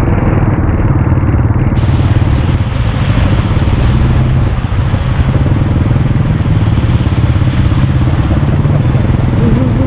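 Motorcycle engine running steadily while riding, with an even low pulsing. About two seconds in, a rushing hiss joins it and stays.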